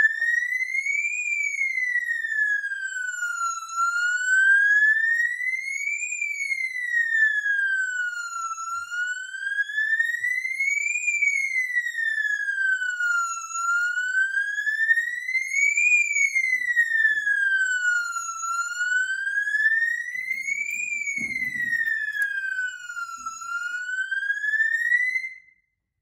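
Fire alarm siren sounding a slow whoop tone on its high volume setting, a shrill tone that glides up and down about every five seconds, signalling a fire alarm set off by a manual pull station. It cuts off abruptly near the end as the alarm is silenced at the panel.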